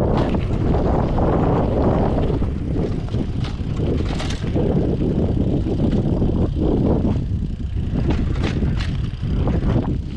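Wind rushing over the microphone and rumbling noise from a rider going fast down a steep trail, with a few sharp clicks or rattles scattered through.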